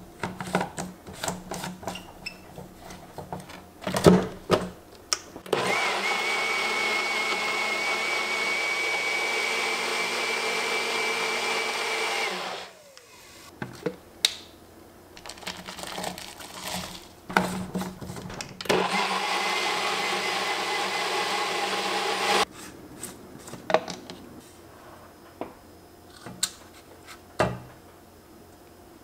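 Single-serve bullet-style blender blending a milky oat batter in two runs, one of about seven seconds and one of about four, each a steady motor noise with a high whine. The plastic cup and blade lid click and knock as they are twisted on, handled between the runs and taken off.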